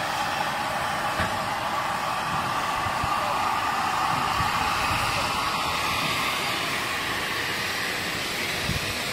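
Steady, loud hiss of steam escaping from a broken-down steam locomotive, Southern Railway Bulleid Battle of Britain class No. 34081.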